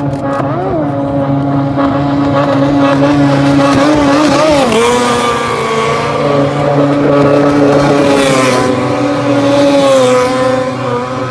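Racing motorboats' engines running at high revs as the boats pass, several engine notes at once. The pitch bends and drops about four and a half seconds in.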